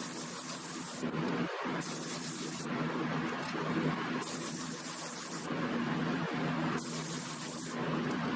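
Gravity-feed air spray gun hissing as it sprays ceramic coating, in four short bursts about a second long with pauses between, over a steady low hum.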